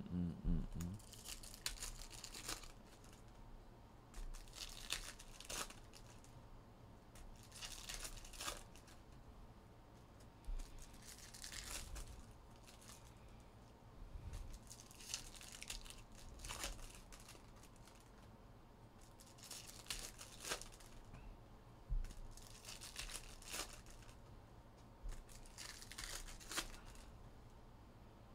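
Foil trading-card pack wrappers being torn open and crinkled, in short bursts about every three seconds.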